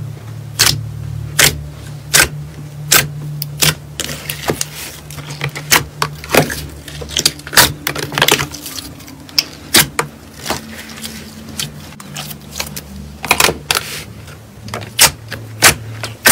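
Thick glossy slime in a tray being pressed and poked with the fingers, giving irregular sharp pops and clicks as trapped air bursts out, some in quick clusters, over a steady low hum.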